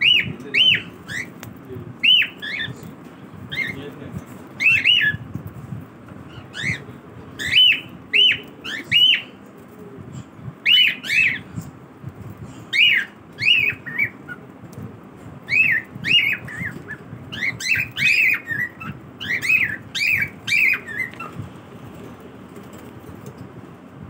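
Cockatiels calling: a long run of short, sharp chirping calls, each rising and falling in pitch, often in quick pairs or threes, stopping about three seconds before the end.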